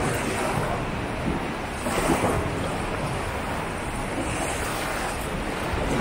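Sea waves breaking and washing on the shore: a continuous surf noise that swells about two seconds in and again near the end.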